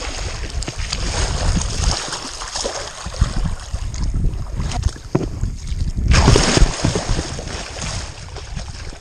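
A large alligator gar thrashing in shallow muddy water, churning and splashing irregularly, with the biggest burst of splashing about six seconds in.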